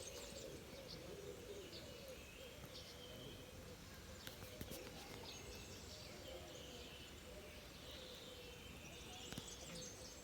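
Faint birdsong: several birds chirping and calling in short high phrases over a low, steady outdoor background hum.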